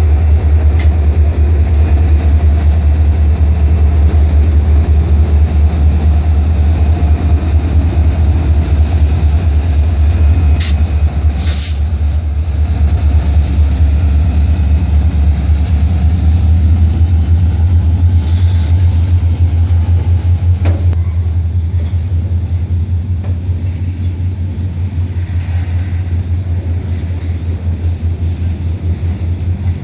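Two EMD SD40-2 diesel-electric locomotives, each with a 16-cylinder two-stroke 645 engine, working under load as they start a freight train moving: a loud, steady deep throb. Two brief sharp high sounds come about ten and eleven seconds in, and the sound eases slightly in the last several seconds.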